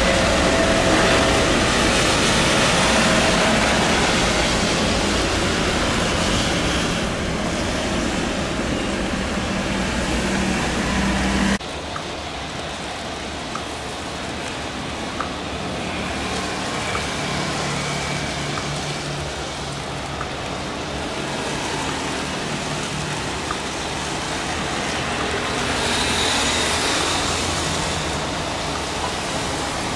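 Widebody twin-jet airliner's engines at takeoff thrust as it climbs away, loud and steady, cutting off abruptly about a third of the way in. Then rain hiss with scattered drip ticks and the distant jet noise of a Boeing 737-800 on approach, swelling near the end as it touches down on the wet runway.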